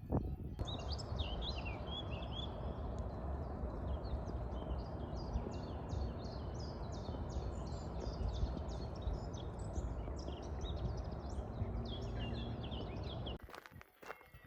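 Many small birds chirping in quick runs of short notes over a steady rushing background noise. It all cuts off suddenly near the end, leaving a few faint knocks.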